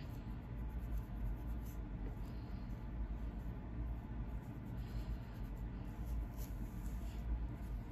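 Long acrylic fingernails scratching a dry, flaky, dandruff-covered scalp, a soft irregular dry scratching, with a low steady rumble underneath.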